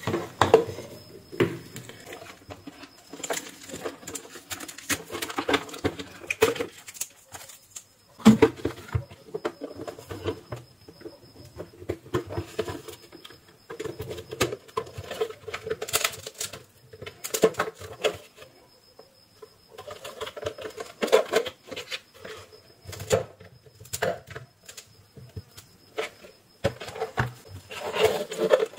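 Irregular clicking, tapping and scraping of hard plastic as a small screwdriver pries apart the housing of a plastic LED ceiling light, with handling knocks; a few sharper snaps stand out, around a third and halfway through.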